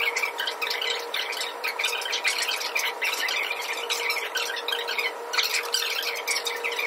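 Badly distorted recording: dense crackling noise over a steady hum, with the voice from a handheld microphone garbled past recognition.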